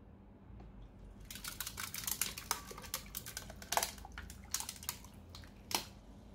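Cold water poured from a plastic pitcher onto ice cubes and tea bags in a stainless steel canister, making a run of irregular crackles and clicks that starts about a second in and stops shortly before the end.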